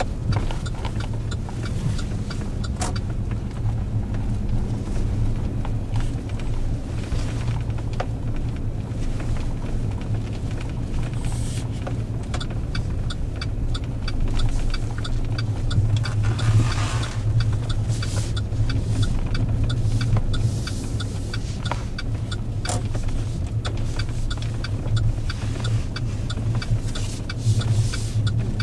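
Chevrolet Silverado pickup heard from inside the cab while driving slowly through deep snow: a steady low rumble of engine and tyres, with many scattered light clicks and a brief louder swell of noise about halfway through.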